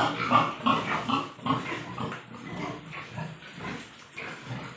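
Domestic pig grunting in a quick series of short grunts, about three a second, loudest in the first second and a half and then fading.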